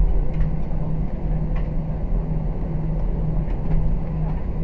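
Airbus A321 cabin noise while taxiing after landing: a steady low rumble with a droning hum underneath.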